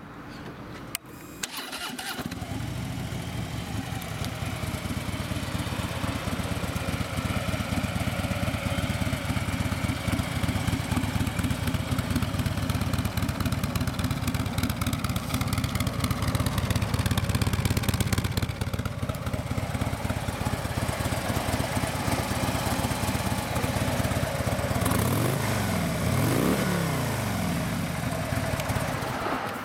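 2015 Harley-Davidson Road Glide's 103-cubic-inch fuel-injected V-twin starting about two seconds in, after a click, then idling steadily with a low, pulsing beat. Near the end the pitch rises and falls briefly.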